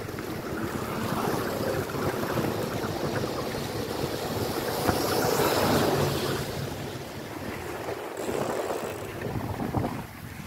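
Wind rushing over the microphone of a moving road bike, with the tyres hissing on wet asphalt. The rush swells about halfway through and eases near the end.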